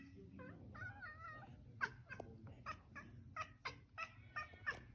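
Domestic cat vocalizing at a bird it is watching: a short trilling meow about a second in, then a quick run of short, sharp chirps, about three a second, the chattering of a cat fixed on prey.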